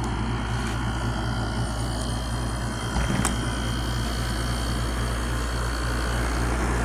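1988 Emerson Quiet Kool 7600 BTU window air conditioner running with compressor and fan on and cooling: a steady low hum with a faint steady high tone. There is one brief click about three seconds in.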